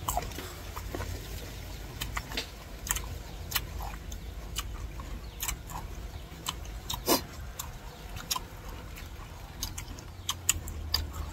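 Crunching and chewing of crisp unripe green mango slices: sharp, irregular crunches, the loudest about seven seconds in, over a low steady rumble.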